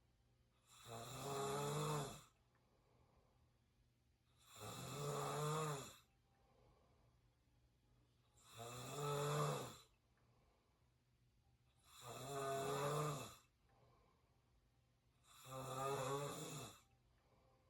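A person snoring through an open mouth: five rattling snores, one about every three and a half seconds, each lasting about a second and a half, with quiet breathing between.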